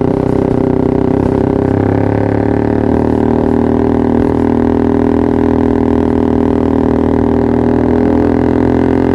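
Yamaha R15 V3's single-cylinder engine idling steadily through a Pro Liner TR1 aftermarket exhaust, an even drone.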